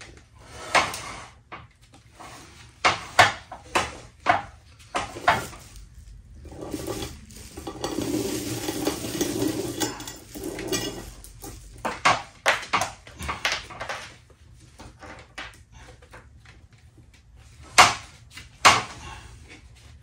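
Loose chainsaw chain clinking and rattling as it is handled and wound onto a spool: scattered sharp clinks, a longer continuous rattle from about seven to eleven seconds in, and two loud clinks near the end.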